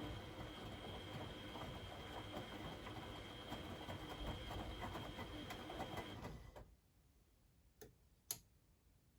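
Beko WMD 46160 washing machine in its wash phase: the motor turns the drum with a steady whine and a rumble of tumbling laundry, then stops about six and a half seconds in. Two sharp clicks follow near the end, during the pause before the drum turns again.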